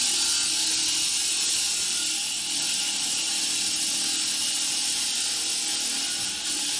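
Concrete wet saw cutting through concrete: a steady, high, hissing grind.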